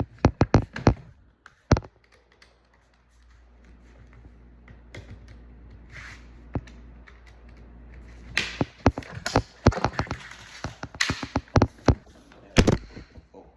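Sharp clicks and taps of a laptop's case and small parts being handled during reassembly, in quick clusters, with a quiet pause of about two seconds near the start.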